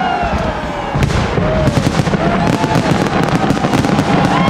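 New Year's fireworks display: a continuous barrage of bangs and crackling that grows denser and louder about a second in, with a crowd's voices underneath.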